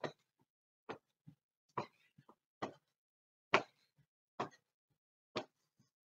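Feet landing on the floor during jumping jacks: evenly spaced thuds a little under one a second, with fainter thuds between.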